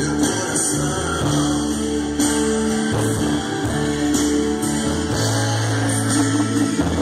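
Brazilian gospel music played loud through a pickup truck's custom car audio system of amplifiers, woofers and horn speakers, with strong bass notes and singing.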